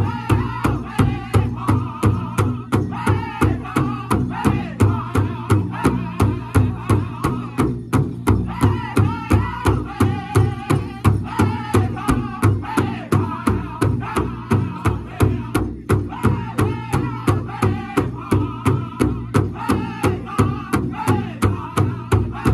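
Powwow drum group singing an intertribal song together while several men strike one large shared hand drum with padded sticks in a steady, even beat of about two strokes a second.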